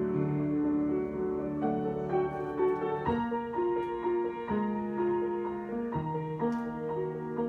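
Piano improvisation: held chords with melody notes above them, a new note or chord struck every second or so.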